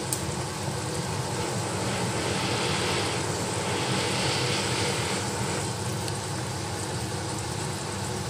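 Pot of soup at a rolling boil: a steady bubbling rush, a little fuller in the middle.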